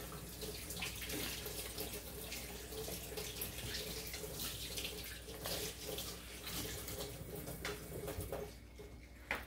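Kitchen tap running with splashing as fresh eggs are rinsed under it by hand; the water stops near the end.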